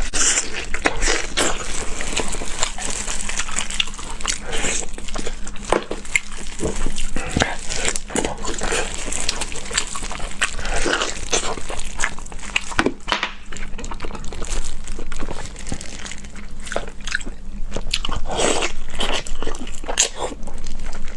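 Close-miked chewing and gnawing on pig's trotters: a dense run of wet, sticky mouth smacks and small clicks, with occasional slurps.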